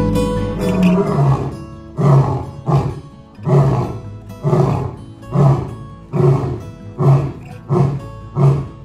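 Male lion roaring: after a rising opening call about a second in, a long series of short, heavy grunting roars follows, roughly one a second.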